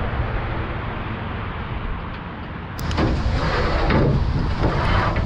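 Wind and rain noise rumbling on the microphone. About three seconds in, a few louder scraping surges as a loading ramp is slid out of the car-hauler trailer.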